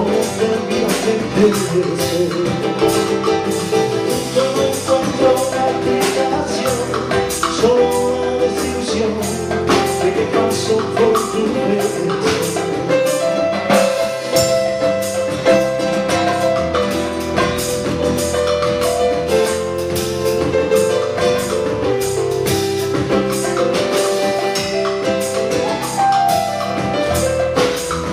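Live band music: an electronic keyboard plays a melody over a drum kit keeping a steady beat.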